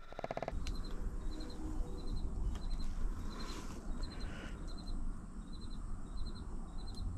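Cricket chirping steadily outdoors, short three-pulse chirps repeating a little under twice a second, over a low rumble.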